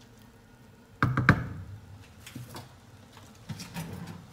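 Wooden spatula knocked sharply three times against the rim of a metal cooking pot about a second in, with a short ring from the pot, followed by a few lighter clicks.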